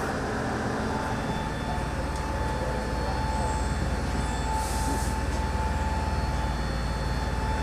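Steady machinery drone: a low rumble, with a thin steady whine that comes in about a second in and a brief hiss near the middle.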